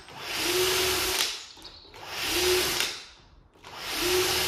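Cordless drill fitted with a self-centring hinge drill bit, drilling pilot holes through the screw holes of a door hinge: three short runs of about a second each, spinning up and stopping.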